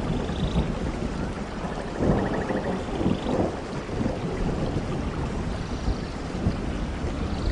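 Steady rain falling on forest leaves and ground, with a low rumble of thunder underneath. A few faint high trilling calls come and go over the rain.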